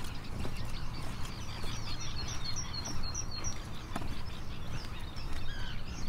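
Mixed chorus of wild birds calling and singing, with a quick run of high chirps in the first half and a few lower whistled notes near the end, over a steady low hum.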